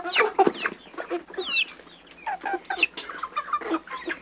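A flock of young chickens clucking close by, many short overlapping calls with one higher call about a second and a half in.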